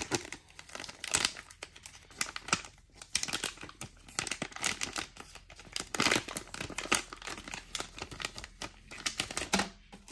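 Crinkling and tearing of a trading-card pack wrapper being opened by hand, in irregular crackling bursts with louder tears about 1, 2.5, 4.5, 6 and 7 seconds in.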